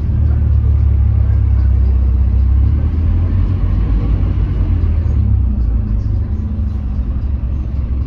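Scania K310UB city bus under way, heard from inside the passenger cabin: a loud, steady low rumble of its five-cylinder diesel engine and road noise. The rumble eases a little about three seconds in and again just past the middle.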